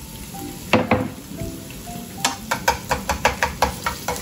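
Sliced onions sizzling in a non-stick frying pan, with a single knock about a second in. From about two seconds in, chopsticks click against the pan about four times a second as the onions are stirred.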